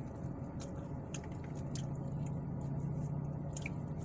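Close-up chewing and wet mouth sounds of someone eating fast food, with scattered small clicks, over a steady low hum.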